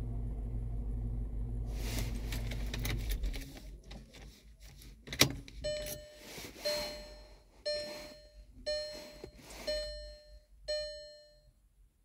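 A steady low hum stops about three seconds in, and a sharp click follows about two seconds later. Then a car's electronic warning chime sounds six times, about once a second, each ding fading out.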